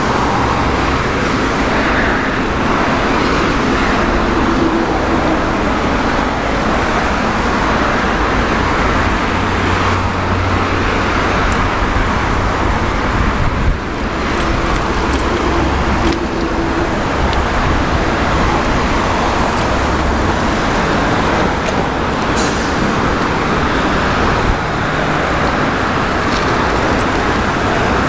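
Steady road traffic from a busy multi-lane road alongside: cars and buses running past in a continuous rushing noise with a low rumble.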